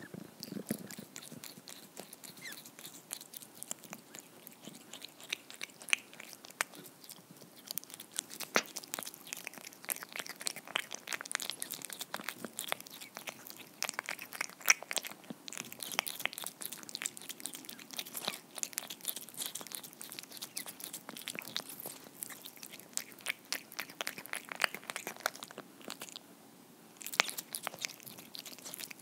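A cat eating soft homemade tuna cake from a small ceramic dish, heard close up: a quick, irregular run of wet chewing clicks and smacks, with a short pause near the end.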